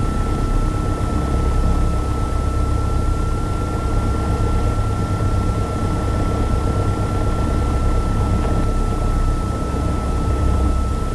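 Piper Archer's engine drone heard through the cockpit intercom audio, steady, with a thin high whine held at one pitch over it.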